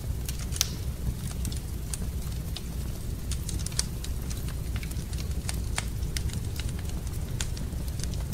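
Wood fire crackling in a fireplace: irregular sharp snaps and pops, a few every second, over a steady low rumble.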